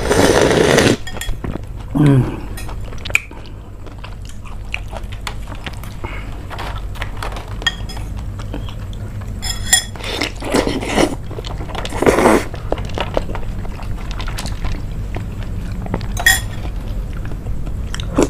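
Metal spoons clinking against a ceramic bowl and plate, a few of the clinks ringing briefly, between several loud slurps and chewing of soft agar jelly and grapes. A steady low hum runs underneath.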